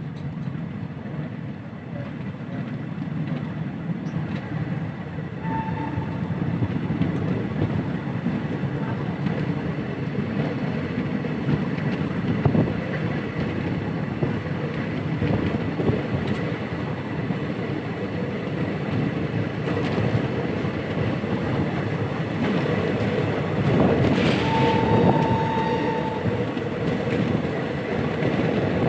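Indian Railways train running on the track: a steady rumble with scattered clicks that grows slightly louder. A short high tone sounds briefly about five seconds in and again, for a second or two, about 24 seconds in.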